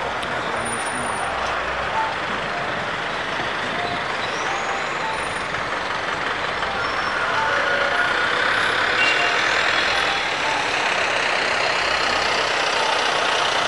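Steady city-street traffic noise from buses and other motor vehicles, with a few scattered short beeps over it.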